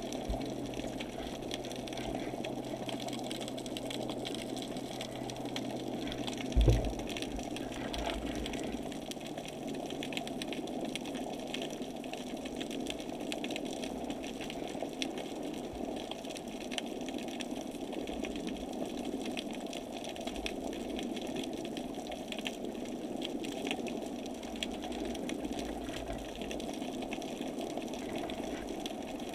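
Steady muffled whirring of a small motor heard underwater, with water noise over it, and a single dull thump about seven seconds in.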